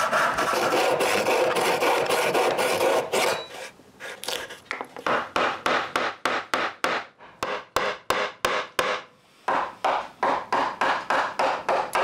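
Handsaw cutting through a small block of wood in quick back-and-forth strokes. From about four seconds in, a round wooden mallet strikes a chisel into a board in a steady series of knocks, about two or three a second.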